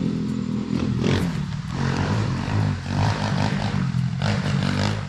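A motor engine running steadily close by, with a low, even hum, cutting off suddenly at the very end.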